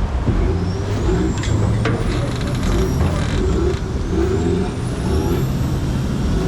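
A heavy engine runs steadily with a deep rumble, while a thin high whine rises in pitch twice, each time over about two to three seconds. A few short knocks sound over it.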